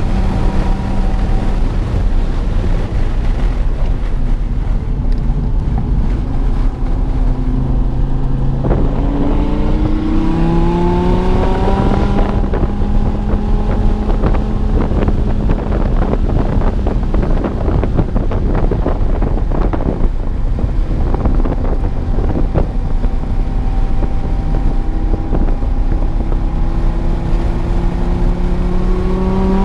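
A 2016 Dodge Viper TA 2.0's 8.4-litre V10, fitted with headers and a tune, running hard under load. Its pitch climbs under acceleration about nine seconds in and again near the end, and holds fairly steady in between.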